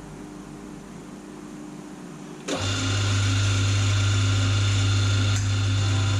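Milling machine motor switching on about two and a half seconds in: an abrupt start, then a steady run with a strong low hum.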